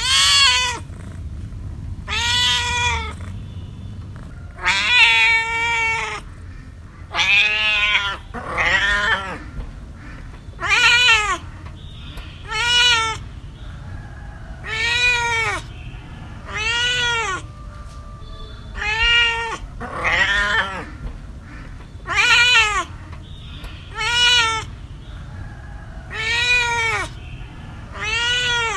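A cat meowing over and over, about one meow every two seconds, each call rising then falling in pitch.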